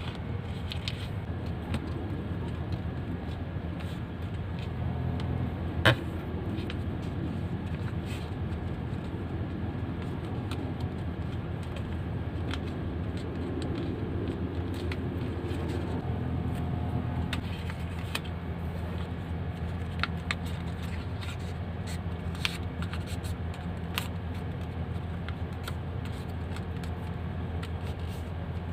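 Paper being folded and creased by hand: scattered crisp clicks and rustles, with one sharp snap about six seconds in, over a steady low hum.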